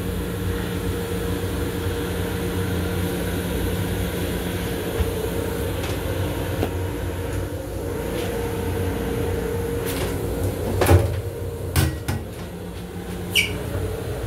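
Steady hum and rumble of an M7 electric railcar's running equipment, heard inside its small enclosed restroom. A few sharp knocks come in a cluster about two-thirds of the way in, the loudest first, followed by a short squeak near the end.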